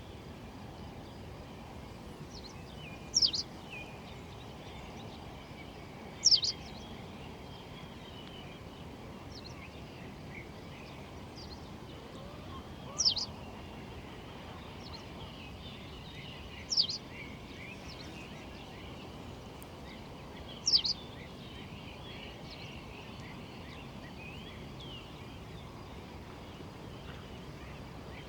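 A songbird repeating a short, high call that slides sharply downward, five times a few seconds apart, over fainter chirps from other birds and a steady background hiss.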